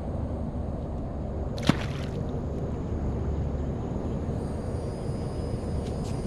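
A single sharp slap about two seconds in, over a steady low rumble.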